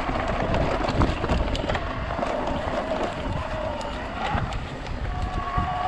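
Shimano Steps E8000 mid-drive e-bike motor running under full boost with a whine whose pitch wavers up and down, over wind noise on the microphone and the rumble and clatter of tyres on rough trail.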